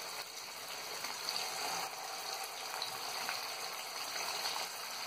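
Batter-coated chicken lollipops deep-frying in oil heated on a high flame: a steady sizzle and bubbling with faint crackles.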